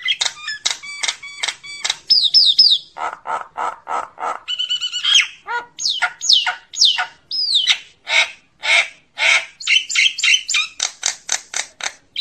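Common myna calling to its flock: a rapid, varied run of whistles, falling whistled glides, harsh grating notes and clicks.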